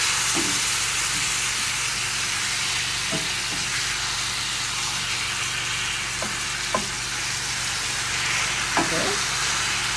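Lion's mane mushroom steaks with sliced onion and red bell pepper sizzling steadily in a hot cast-iron skillet as they are pressed down with a wooden spatula to squeeze out their water. A couple of light knocks come about two-thirds through and near the end.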